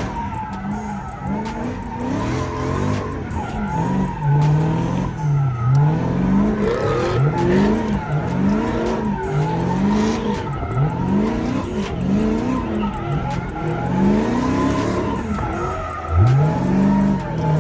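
Car engine revving up and down over and over, about once a second, with tires squealing throughout: a car spinning donuts. One sharper rev comes near the end.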